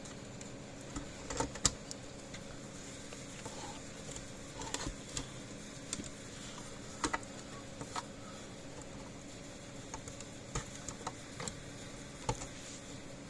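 Scattered small clicks and taps as a circuit board is handled and fitted back into a solar fence charger's case, over a faint steady hum.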